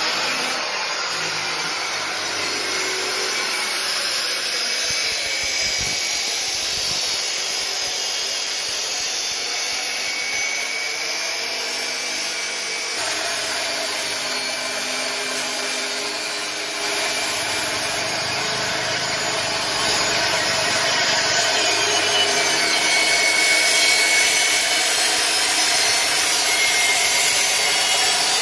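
A power tool cutting metal door hinge pins: a continuous grinding and cutting sound that gets louder about two-thirds of the way through.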